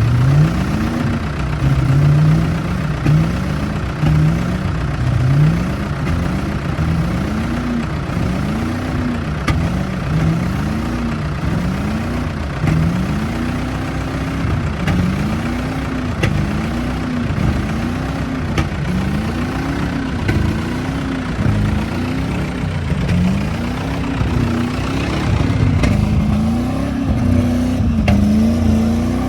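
Vehicle engine revving up and dropping back over and over, a rising and falling pitch about every second and a half.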